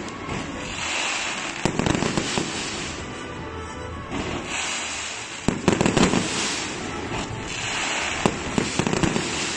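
Fireworks going off: clusters of sharp bangs and crackling about a second and a half in, around six seconds and near the end, with a hiss of burning sparks between them.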